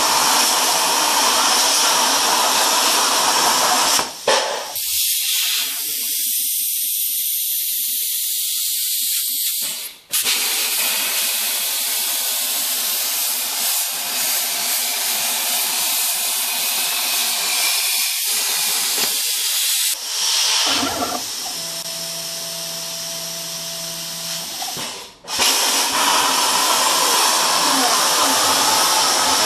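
Hypertherm Powermax 45 XP plasma cutter's machine torch cutting steel plate on a CNC table: a loud, steady hiss of the plasma arc and air jet. The sound changes abruptly a few times, thinner and higher for several seconds near the start.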